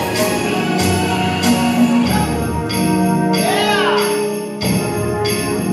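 Music playing: a pop track with held synthesizer chords, a bright jingling percussion beat, and a sweeping synth glide a little past the middle.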